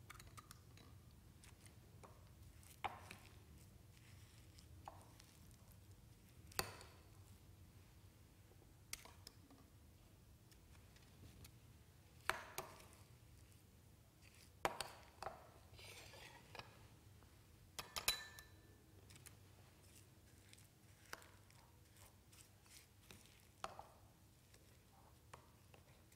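Scattered light clicks, scrapes and knocks of a metal ice-cream scoop working lemon sorbet in a ceramic bowl, with a few clinks against a glass dessert cup. Faint overall, with the sharpest knocks in the middle stretch.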